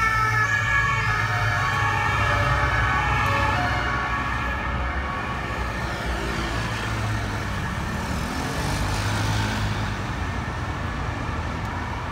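Siren of a passing French police motorcycle, loud at first and fading after a few seconds, over a steady low rumble of street traffic.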